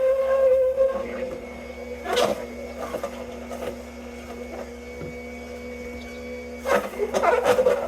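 Electric juicer's motor running with a steady hum as it grinds apples and pears, louder in the first second, with a knock about two seconds in and a clatter of knocks near the end.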